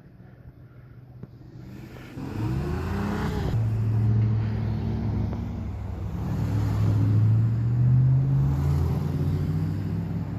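Fire truck's diesel engine accelerating, starting about two seconds in, its pitch climbing and then running loud and steady, rising again later on.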